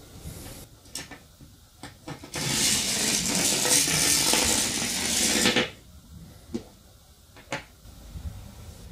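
Homemade magnet-and-battery electric train, a battery with disc magnets on each end, running through a bare copper wire coil: a loud steady hiss for about three seconds, starting a little over two seconds in and stopping suddenly. A few sharp clicks come before and after it as the battery and magnets are handled.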